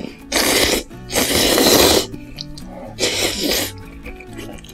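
A person slurping instant ramen noodles off chopsticks in three slurps, the second the longest.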